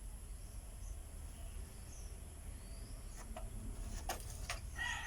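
Faint, high bird chirps over a low steady rumble, with a few sharp clicks after about three seconds; near the end a rooster starts crowing.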